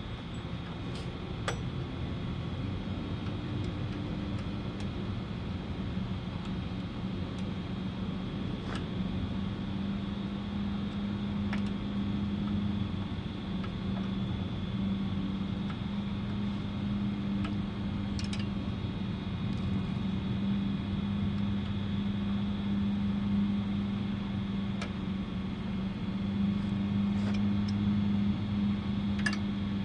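A steady machine drone that grows slightly louder, with occasional light clicks and taps.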